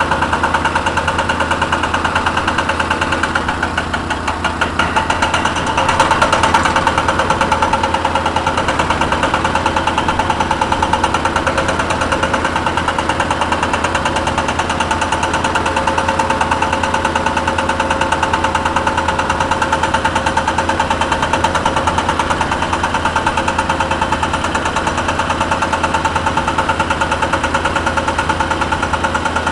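Cat 320 excavator's diesel engine running steadily with a fast, even rattle. It drops briefly about four seconds in, then comes back up louder.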